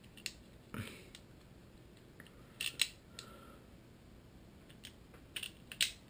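Small metal parts of a Rob Allen Vecta 2 speargun trigger mechanism clicking and tapping as the trigger is fitted and worked into place by hand. A few light, separate clicks: one pair close together near the middle and a few more near the end.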